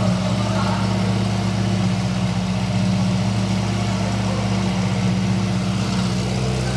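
Ferrari 488 Pista's twin-turbo V8 idling steadily through a Novitec aftermarket exhaust, a low even note that holds the same pitch throughout.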